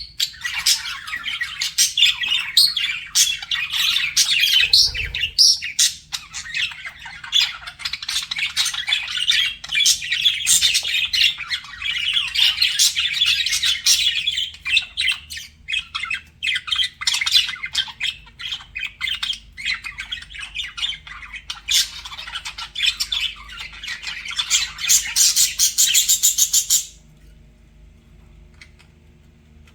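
Budgerigars chattering and warbling in a fast, dense stream of chirps and squawks, which cuts off abruptly near the end.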